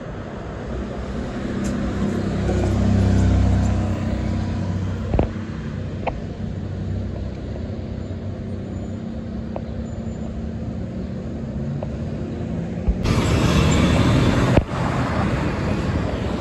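Road traffic: a box truck's engine and tyres swell in a low rumble as it passes about three seconds in, then steady street traffic noise. A louder rush of passing vehicles starts suddenly near the end.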